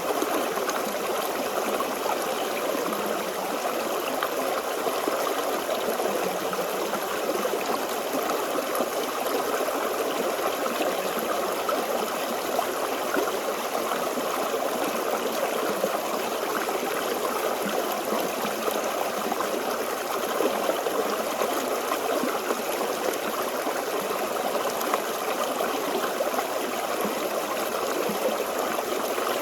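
Forest stream flowing and trickling, a steady rush of water.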